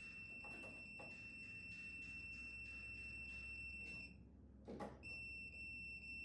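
Electrical voltage tester giving a steady, high-pitched beep while testing live terminals, a sign that voltage is present. The tone stops about four seconds in, a click follows, and the beep starts again a second later.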